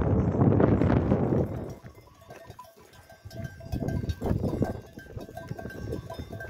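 Wind buffeting the microphone for the first second and a half. Then the bells on a moving flock of sheep and goats clink and ring irregularly.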